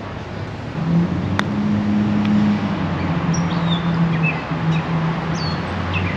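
A motor vehicle's engine running with a low, steady hum that comes in about a second in and drops a little in pitch partway, with birds chirping over it in the second half and one sharp click near the start.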